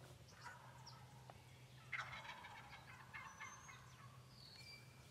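Wild turkey gobbling faintly: a rattling call of about a second and a half, starting about two seconds in. A couple of thin, high songbird chirps follow.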